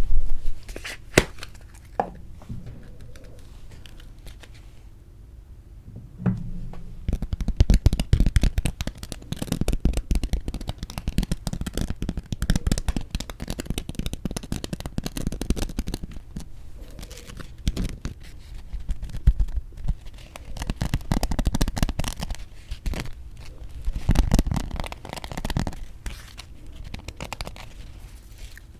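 Close-miked chewing of crisp toasted white bread: dense crackling crunches in bouts, after a quieter few seconds near the start.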